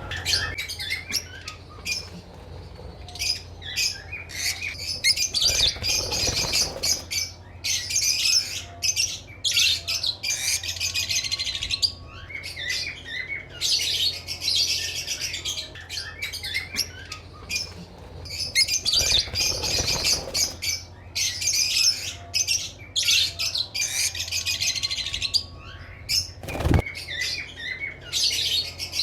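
A flock of small parrots, Fischer's lovebirds among them, chirping and squawking continuously in an aviary, over a steady low hum. A single sharp knock sounds near the end.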